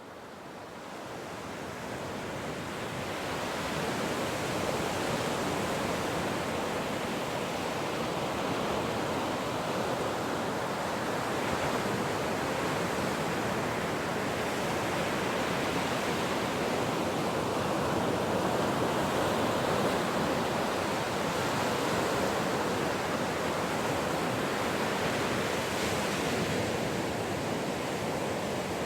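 Ocean surf washing continuously in a steady rush, with slow gentle swells as waves break. It fades in over the first few seconds, then holds at an even level.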